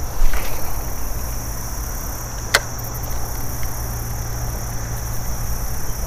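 Steady high-pitched chorus of insects over a low rumble, with one sharp click about halfway through.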